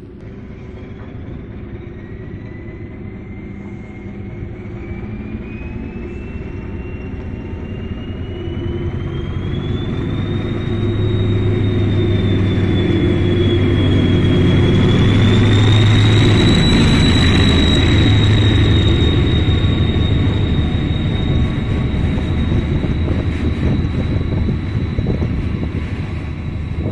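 SM42 diesel-electric shunting locomotive hauling a works train past: its diesel engine's low rumble grows louder as it approaches, is loudest a little past halfway, then gives way to the rumble of the work cars rolling by. A high whine rises in pitch over the first ten seconds and then holds steady.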